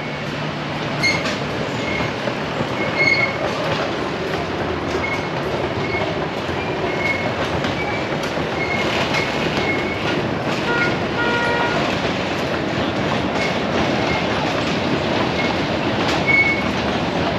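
Miniature ride-on toy train running along its narrow track, its wheels clattering steadily on the rails.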